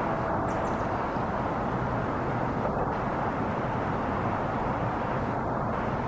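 Steady outdoor hum of distant city traffic, an even rushing noise with no distinct events.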